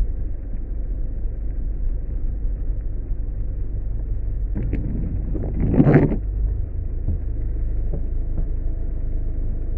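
Car driving slowly on a wet, flooded road, heard from inside the cabin: a steady low engine and road rumble, with a brief louder rush about six seconds in.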